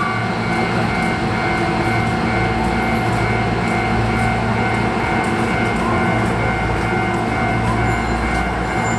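Electric commuter train at an underground station platform, giving off a steady hum and rumble with several constant tones.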